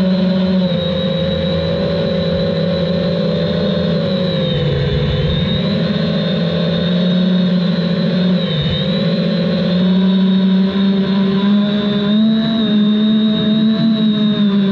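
Quadcopter drone's electric motors and propellers whining steadily. The pitch dips twice partway through as the throttle eases, then settles slightly higher.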